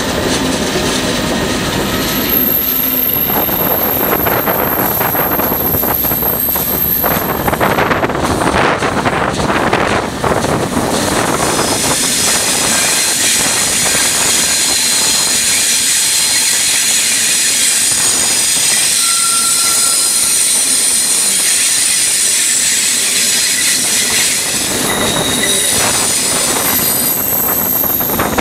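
Irish Rail train hauled by locomotive 217 running on the rails, heard from a carriage window. For about the first ten seconds there is dense rolling rumble; then the wheels squeal in several high, steady tones from about twelve seconds in, dying away near the end.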